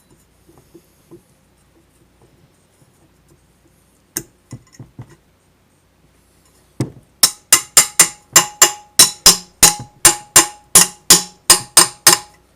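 A hammer striking metal in a rapid run of about three ringing blows a second, driving the wheel hub onto the end of the axle. The run starts about seven seconds in and follows a few lighter knocks.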